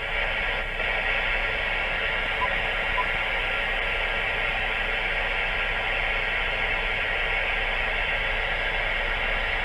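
Ham radio transceiver's speaker giving a steady static hiss as the tuning knob is turned, with a couple of faint short blips but no stations coming through: poor propagation, a band the operator calls dead.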